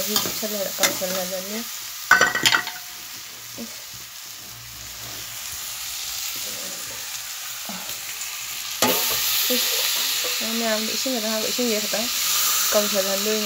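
Potatoes and tomatoes frying and sizzling in a wok while a metal ladle stirs and scrapes the pan. A short sharp clatter comes about two seconds in, and the sizzling grows louder at about nine seconds.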